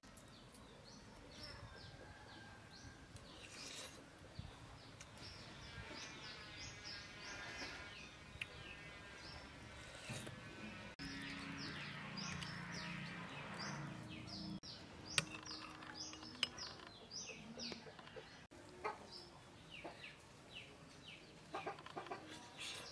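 Small birds chirping over and over, with chickens calling in the background. A metal spoon clinks now and then against a ceramic soup bowl.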